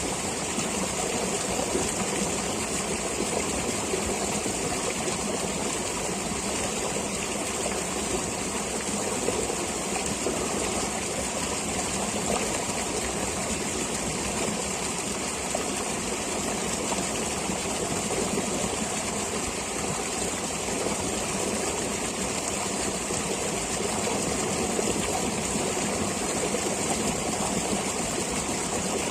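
A stream of water flowing steadily: an even, unbroken rushing with a constant high hiss, no single events standing out.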